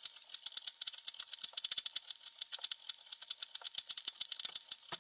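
Chef's knife thinly shredding a head of white cabbage on a cutting board: quick, even strokes, each a crisp tap of the blade through the cabbage onto the board, many a second.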